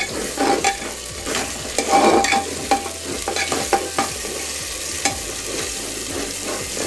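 Steel spatula stirring and scraping around an aluminium pressure cooker pot as a spice paste sizzles in hot oil, with irregular scraping knocks over a steady frying hiss. The masala is being roasted (bhuna) until done.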